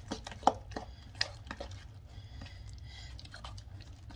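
A utensil stirring thick tzatziki (yogurt and grated cucumber) in a stainless steel bowl: wet squishing with irregular clicks of the utensil against the bowl, the loudest about half a second in.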